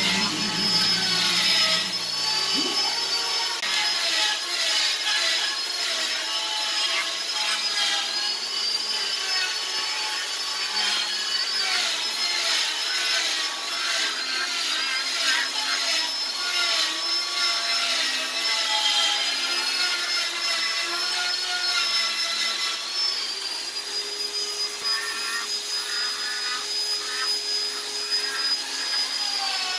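Rotary carving tool on a flexible shaft, with a small burr grinding detail into wood. Its high whine sags in short dips and recovers again and again as the bit bites, over a scratchy grinding noise. Music trails off in the first few seconds.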